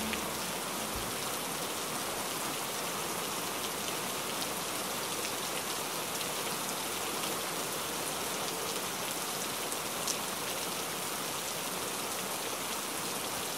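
Steady rain on a window pane, an even hiss with a few louder individual drops.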